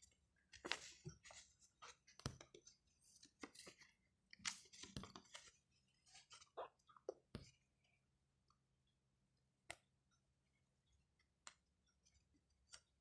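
Faint crinkling and clicking of a paper gift package being handled and picked at to get it open, in scattered short bursts for the first seven or eight seconds, then only a few isolated clicks.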